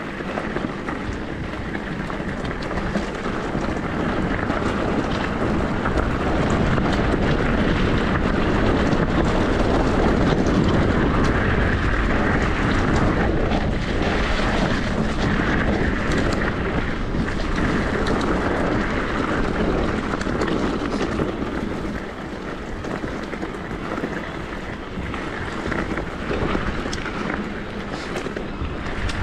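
Wind rushing over the microphone and tyres rolling on a dirt trail as an e-bike rides downhill, with small rattles and knocks throughout. The rush swells to its loudest about ten seconds in, then eases off.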